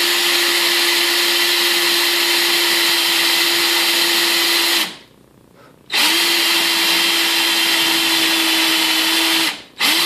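Power drill spinning a 3/4-inch paddle (spade) bit down into a wooden stair bottom plate, boring a hole for an iron baluster. The motor spins up and runs steadily, stops about five seconds in, starts again a second later and runs on, then gives two short bursts near the end.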